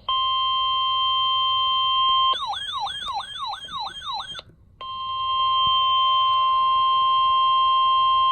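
Emergency alert attention tone for a severe thunderstorm warning: a loud, steady high-pitched tone. About two seconds in it switches to a fast warbling sweep of roughly four cycles a second, breaks off briefly, then returns to the steady tone.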